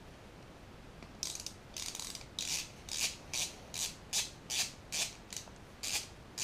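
Ratcheting screwdriver clicking in short rasping strokes, about two to three a second, starting about a second in, as the last screw of an alternator's voltage regulator and brush holder is backed out.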